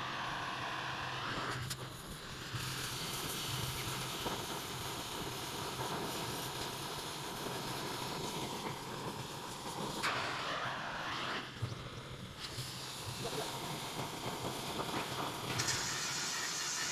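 Machinery running steadily, a low hum under a broad hiss, changing in character about ten seconds in and again near the end.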